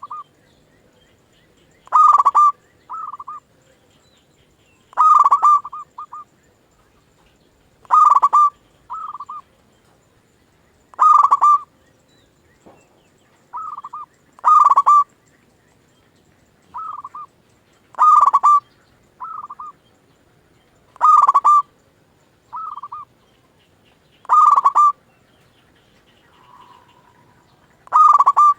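Zebra dove (perkutut) cooing its repeated song, a phrase about every three seconds: a loud ringing coo followed by a shorter, softer one.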